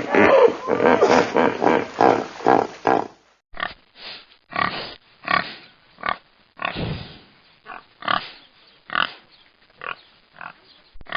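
Animal calls from two spliced recordings: a dense, rapid run of calls for about three seconds, then, after an abrupt cut, separate short calls about every half second to a second.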